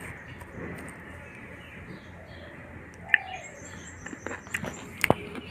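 Birds chirping over a steady background, with a quick run of high chirps about halfway through. A few sharp clicks and taps are heard near the middle and end.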